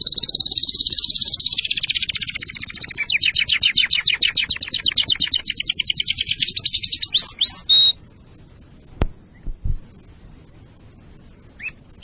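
Domestic canary singing: a fast high trill, then a rolling run of rapid repeated notes, ending in a few rising whistled notes about eight seconds in. A pause follows, broken by a couple of soft clicks and one short note near the end.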